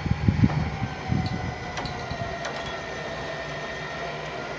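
1959 Willys truck rolling slowly: low rumbles and a few clunks in the first second and a half, then a steady low hum with a faint whine.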